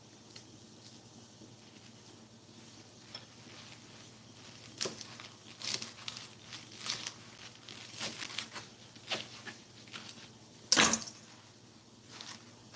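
Chef's knife chopping mustard greens on a bamboo cutting board: a run of irregular chops starting about five seconds in, then one louder knock near the end.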